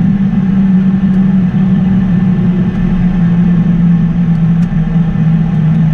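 Steady, loud jet cockpit noise during the ground roll after landing, with a humming tone that slowly falls in pitch.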